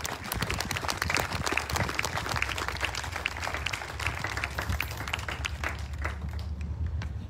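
Audience applauding: dense clapping that thins out and dies away about six seconds in, over a low steady rumble.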